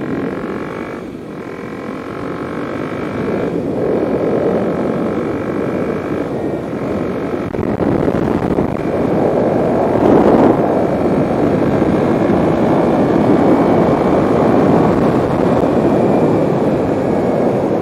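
Kawasaki KLX300's single-cylinder four-stroke engine, breathing through a Delkevic carbon slip-on exhaust, pulling hard under acceleration. Short breaks in the first eight seconds fit upshifts. It then runs at high road speed, near 70 mph, getting steadily louder with wind rush mixed in.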